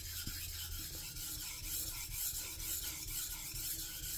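Santoku blade with an Aogami 1 steel core stroked back and forth on a wet 2000-grit Sakura water stone: a steady, rhythmic scraping hiss of steel on a fine finishing stone.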